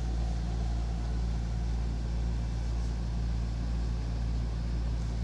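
Steady low hum, even and unchanging, from a running machine or appliance.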